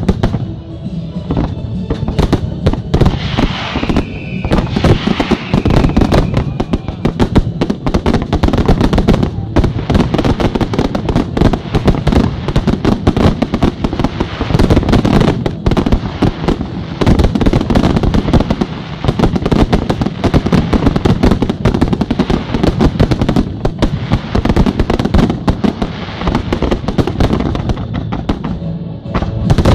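Fireworks display in full barrage: a dense, unbroken run of shell bursts, booms and crackling. A whistle falling in pitch sounds a few seconds in.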